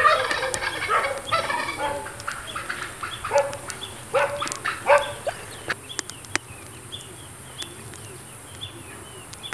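Farm fowl calling: a noisy flurry of short honking, squawking calls that thins out after about five seconds, followed by small high chirps. A steady high hiss runs underneath.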